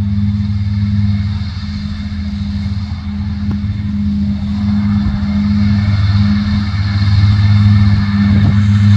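Diesel engine of a Krone BiG M 450 self-propelled mower running steadily under load while mowing green rye: a deep, even drone that grows somewhat louder in the second half.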